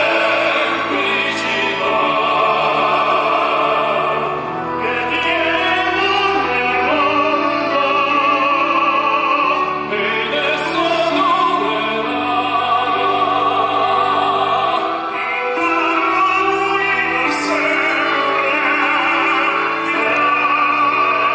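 Tenor voices singing in operatic style with strong vibrato, holding long notes over instrumental accompaniment with sustained bass notes that change every few seconds.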